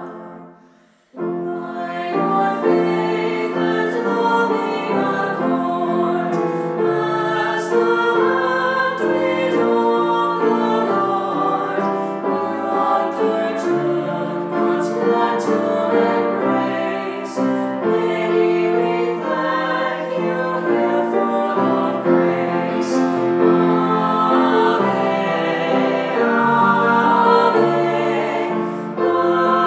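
Choral hymn music with slow, held chords. One piece fades out at the start, and after a short gap another comes in abruptly about a second in.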